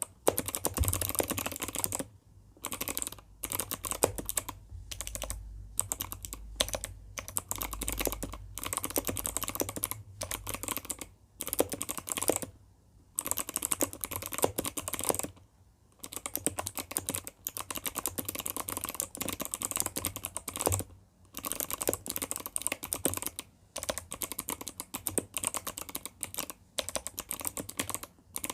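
Fast typing on a mechanical keyboard with Kailh Box White clicky switches and lubricated stabilizers: dense runs of sharp key clicks, broken by short pauses every few seconds.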